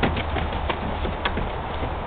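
Great Dane puppies scrabbling about in a plastic wading pool full of dry leaves: leaves rustling and crunching, with quick irregular clicks of paws on the plastic and a few short, low puppy grunts.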